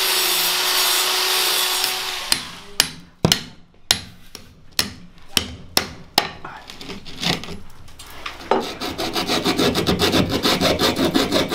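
A handheld power saw with a disc blade runs, cutting into a ceiling, and stops about two seconds in. A series of sharp knocks against the ceiling follows. Then a hand drywall saw saws through the ceiling in quick, rasping strokes.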